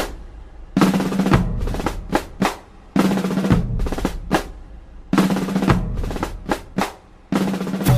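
Drum-led music: a snare-heavy percussion pattern with rolls over a low bass note, repeating a short phrase about every two seconds.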